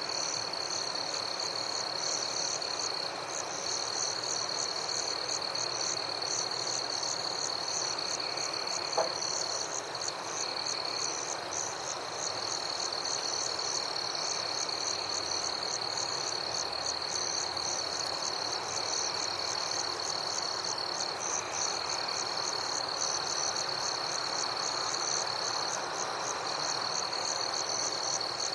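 Summer night forest ambience: a steady high insect trill and rapidly pulsing insect chirps over a chorus of frogs. A single short click about nine seconds in.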